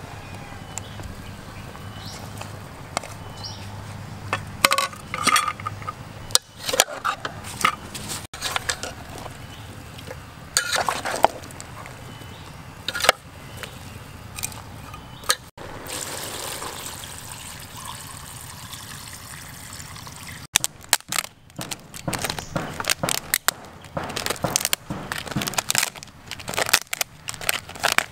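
Metal ladle stirring and scraping through chunks of meat and vegetables in an aluminium cooking pot, with sharp irregular clinks against the pot, and a stretch of liquid being poured in partway through.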